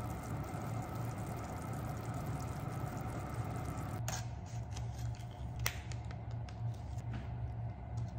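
A pot of chikuzenni simmering, as a steady low bubbling hiss under a low hum. From about four seconds in, a kitchen knife cuts the plastic film of a tofu pack and the tofu is handled out of its tray, giving a few sharp clicks and crackles of plastic.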